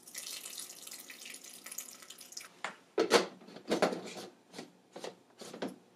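Water poured into a plastic NutriBullet blender cup onto grated coconut, a steady splashing stream for about two and a half seconds. Then a run of sharp plastic clicks and knocks as the blade base is fitted onto the cup and screwed on.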